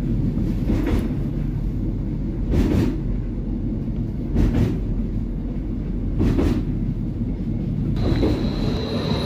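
Running noise heard inside a rail vehicle's driver's cab: a steady low rumble, with four short louder rushes about two seconds apart. A high steady whine joins about eight seconds in.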